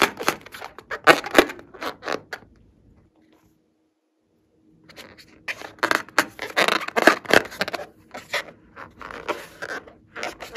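Hands handling a filled latex balloon: the rubber rubbing and scraping against the fingers in quick, scratchy strokes. It stops for nearly two seconds in the middle, then goes on.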